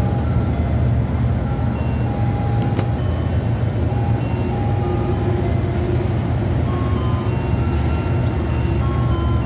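Ice cream truck jingle playing from its loudspeaker: a simple melody of short, held, chime-like notes, over a steady low rumble.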